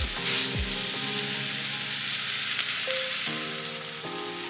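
Beef filet searing in hot olive oil in a stainless steel skillet: a loud, steady sizzle.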